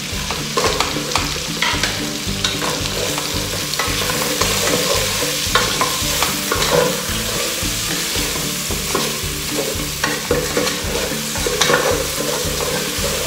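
Wooden spatula stirring and knocking chicken pieces and lemongrass around in an aluminium pot, with irregular scrapes and clicks against the pot. Underneath runs a steady hiss of the chicken cooking over the gas flame.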